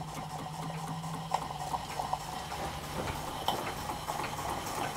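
Scratch-built overtype model steam engine running under steam, its exhaust making a quick, light ticking, over a steady low hum.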